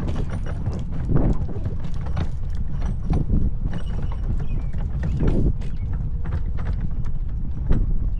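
Running footsteps pounding along a trail in an irregular clip-clop rhythm, over a steady low rumble of wind and movement on the microphone.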